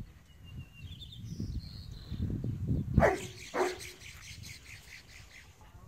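A dog barks twice in quick succession about three seconds in, each bark short and dropping in pitch.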